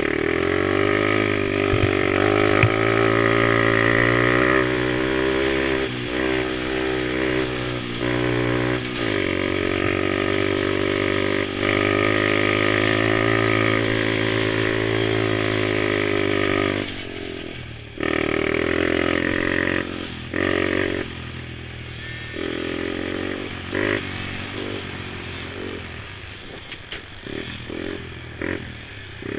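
Small mini quad (youth ATV) engines running at high revs, rising and falling in pitch. The sound is steady for most of the first part, then drops off and breaks into shorter, uneven bursts of revving.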